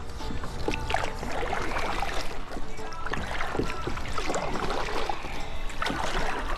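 Kayak on moving water: irregular small splashes and clicks, with knocks of the camera being turned around on the boat, over a low rumble.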